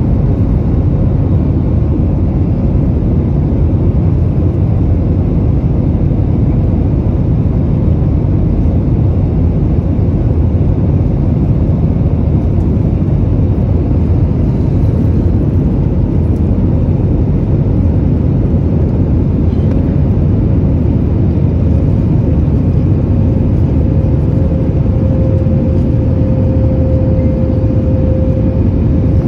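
Steady cabin noise of an Airbus A321neo in flight, heard from a window seat over the wing: a low, even rumble of engines and airflow, with a faint steady tone that grows a little stronger near the end.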